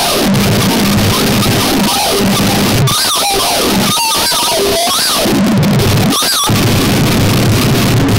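Harsh noise music: a loud, dense wall of distorted noise with wobbling electronic tones that rise and fall rapidly and a steady low hum underneath.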